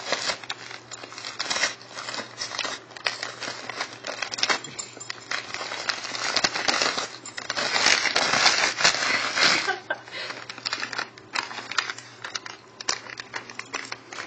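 Wrapping paper and plastic treat packets crinkling and tearing as a small dog paws and noses into them: irregular crackles that grow loudest and densest a little past halfway, then thin out to scattered crinkles.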